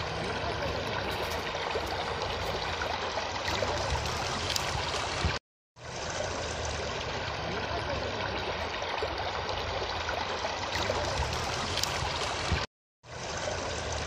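Stream water rushing steadily over rocks, an even wash of flowing water broken twice by brief cuts to silence.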